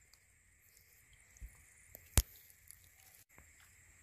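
Faint wet squishing and handling noise as a caught swamp eel is taken from its muddy burrow, with one sharp click a little over two seconds in.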